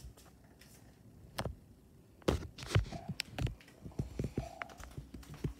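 Irregular soft thumps and knocks from movement in a small tiled room, the busiest stretch about two to three and a half seconds in, with two faint short squeaks about three and four and a half seconds in.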